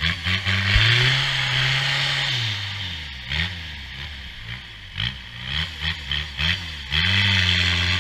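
Off-road race vehicle's engine revving hard while stuck in deep mud: one long rev about a second in that rises and falls, then a series of short throttle blips and another held rev near the end, with a steady hiss from the spinning wheels and mud.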